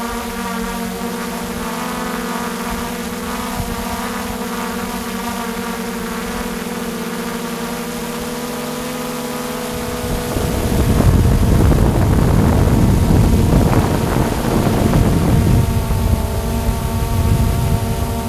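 Multirotor drone's propellers whining steadily at close range. About ten seconds in, a loud rumble of wind on the microphone joins in for several seconds, then eases.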